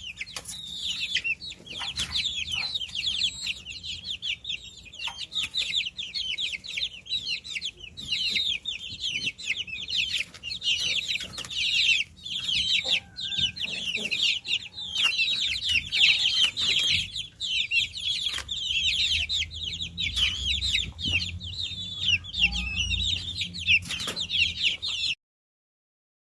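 A group of baby chicks peeping continuously, many short, high, falling calls overlapping one another; the sound cuts off suddenly near the end.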